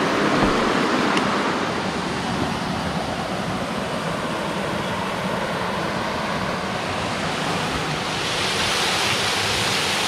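Water of a rocky mountain stream flowing: a steady rush of water noise that grows a little brighter about eight seconds in.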